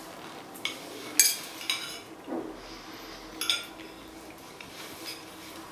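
Metal knife and fork clinking and scraping against a plate while cutting food: a few sharp ringing clinks over the first three and a half seconds, the loudest a little over a second in.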